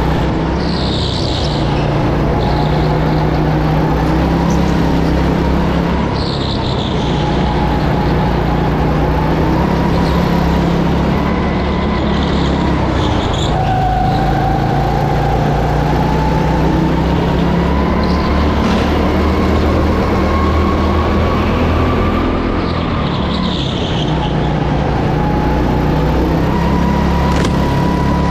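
Kart engine heard onboard, running hard through a lap. Its pitch climbs steadily, drops sharply once about halfway through as the kart brakes into a corner, then climbs again.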